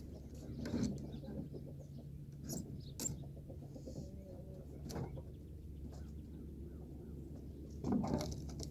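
Chickens clucking, with a few short clicks and knocks over a steady low background hum.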